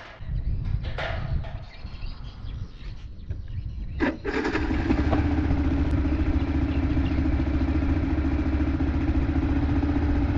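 Enduro motorcycle engine running with an uneven low rumble. About four seconds in there is a sharp click, and the engine then runs louder at steady revs.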